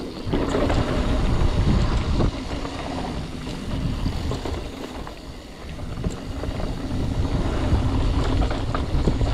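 Mountain bike rolling fast down a dirt trail: wind rushing over the microphone and knobby tyres on dirt give a loud, uneven rumble, with occasional clicks and rattles from the bike over bumps.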